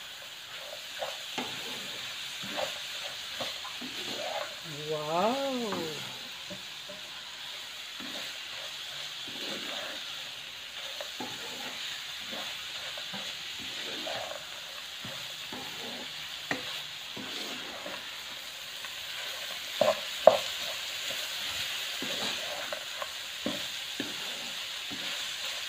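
Anchovies, tempeh, tofu and peanuts sizzling in sambal in a wok while being stirred and tossed with a spatula: a steady frying hiss under repeated scrapes and knocks of the spatula against the pan. Two sharp knocks stand out about twenty seconds in.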